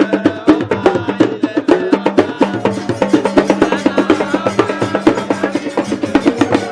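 Music driven by fast drum percussion, many sharp strokes a second, over a steady low note.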